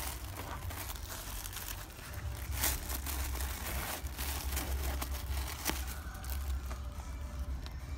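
White tissue paper packing crinkling and rustling as a handbag is handled and opened, with a few sharp clicks; the rustling thins out near the end.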